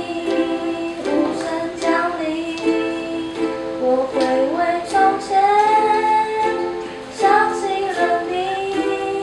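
Ukulele strummed in a steady rhythm, with a voice singing a melody over it.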